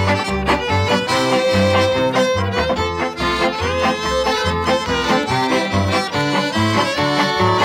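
Instrumental background music with a fiddle over a bass line that moves steadily from note to note.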